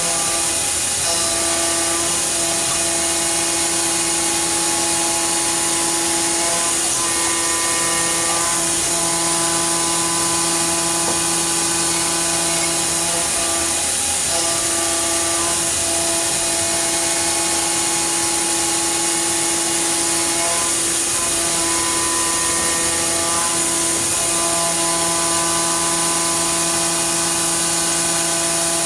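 Fadal VMC4020 CNC vertical machining center running under power: a constant high hiss with steady motor whines that change pitch or drop out and return every several seconds.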